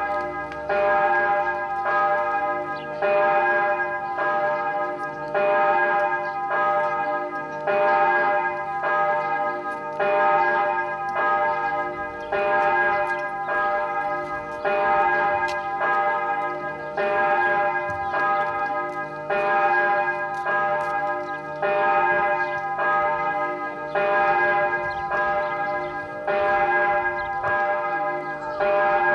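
Church bells ringing steadily, a fresh stroke about once a second with the ringing of each overlapping the next.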